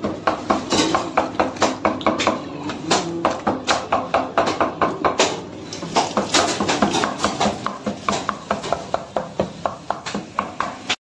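Kitchen knife chopping quickly on a plastic cutting board: a rapid run of sharp knocks, several a second, with short breaks.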